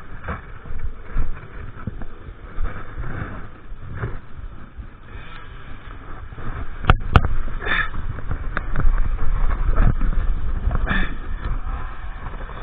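KTM EXC 350 dirt bike riding off-road, with an uneven low rumble and noise. Two sharp knocks come about seven seconds in, and the rumble grows louder after them.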